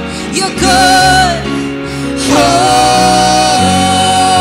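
Live worship band with violin and electric guitar, a woman singing a wordless "oh" melody with vibrato. A short phrase comes about a second in, then one long held note through the middle.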